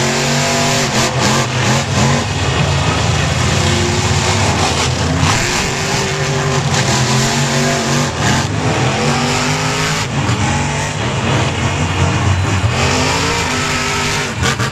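Monster truck engine revving hard, its pitch climbing and falling again several times as the truck spins circles in the dirt.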